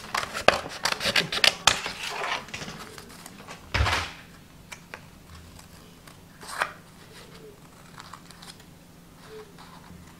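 Scissors snipping through folded white chart paper: a quick run of cuts in the first few seconds, then a brief louder scrape about four seconds in, and sparser snips after.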